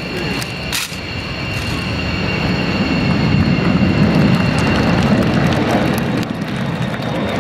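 Jet aircraft engine noise: a loud rumble with a steady high whine, swelling over the first few seconds and then holding. A single sharp knock sounds about a second in.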